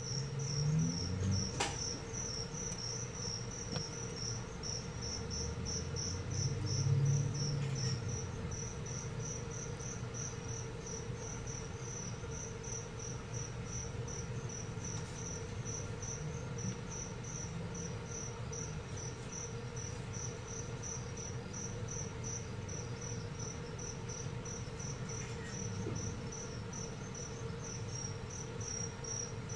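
Cricket chirping in a steady, regular train of short high chirps, over a low steady hum. There are a couple of low bumps, one about a second in and a louder one around seven seconds in.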